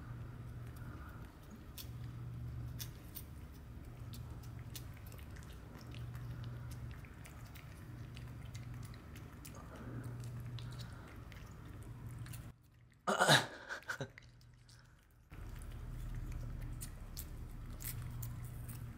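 Cats licking and chewing lickable paste treat from a squeeze tube, many small wet mouth and tongue clicks. About two-thirds through comes one short, louder voice-like sound that falls in pitch.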